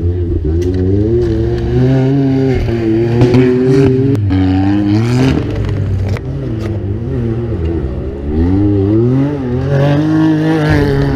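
Off-road buggy engine revving hard under load, its pitch rising and falling again and again as the throttle is worked on a steep dirt slope.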